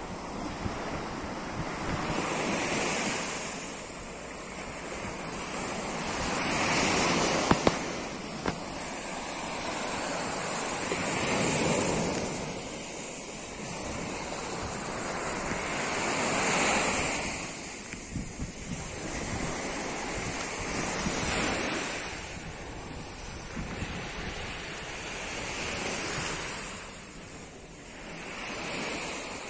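Sea surf breaking on a sandy beach, surging and falling back about every four to five seconds, with wind rumbling on the microphone. A couple of sharp clicks about seven seconds in.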